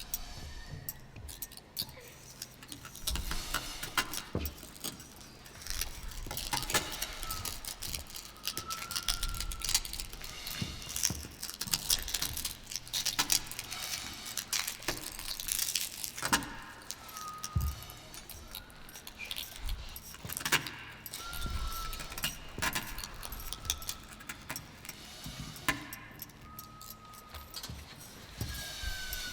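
Irregular jingling, rattling clatter of small hard objects, with a brief thin whistle-like tone now and then.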